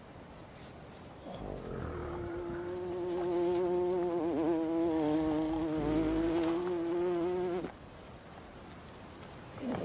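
A fly buzzing in a steady drone that wavers in pitch partway through, then stops suddenly about two seconds before the end.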